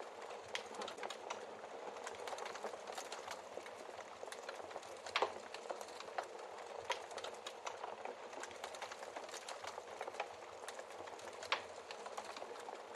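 Wood fire crackling in a fireplace: a steady low hiss of flame with frequent small crackles and a few louder pops, the loudest about five seconds in and again near the end.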